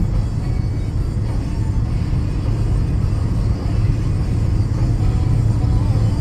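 Car driving on a wet road: a steady low road rumble, with music playing underneath.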